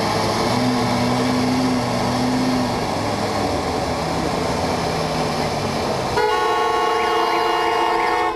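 Car horns played as instruments in a concert piece for horns and ensemble: a dense, loud wash of sound with a few low held notes. A bit past six seconds a bright chord of many horns blares in together, holds for about two seconds and cuts off sharply.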